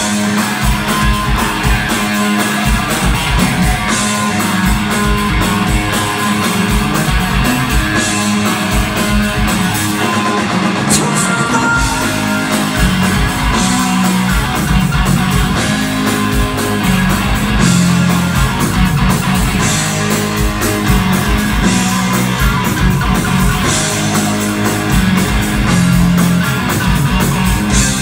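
A rock band playing live: electric guitars, bass and drums, heard from within the audience.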